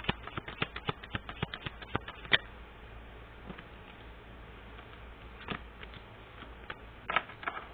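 Tarot deck being shuffled by hand: a quick run of crisp card slaps for about two and a half seconds, then a few single card taps and flicks.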